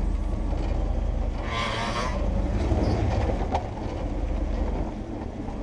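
Jeep Wrangler TJ crawling slowly over rock with a low, steady engine and drivetrain rumble. A brief rasping burst comes about a second and a half in.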